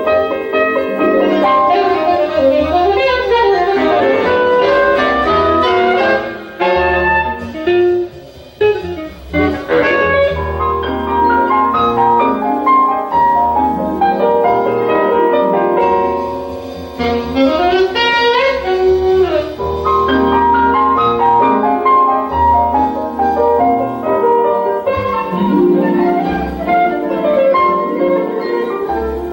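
Jazz playing from a vinyl record on a VPI turntable: a saxophone carries the melody over piano, its notes bending and gliding, with a brief drop in level about eight seconds in.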